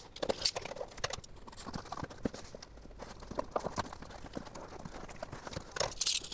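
A cardboard box being cut open with a utility knife and scissors: a string of light, irregular taps, scrapes and cardboard rustles as the packing tape is sliced, with a brief scratchy hiss near the end.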